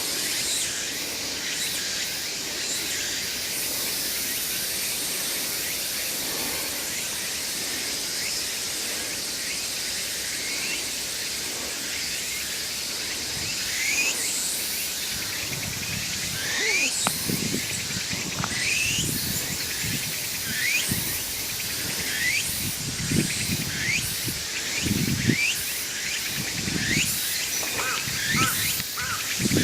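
Small birds calling: a run of short, quick rising chirps, several a second at times, starting about a third of the way in, over a steady high hiss. Low rumbles come and go in the second half.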